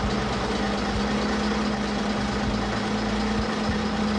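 Restored STL London bus engine idling steadily in the chassis, with its cooling fan spinning and an even low pulsing from its firing.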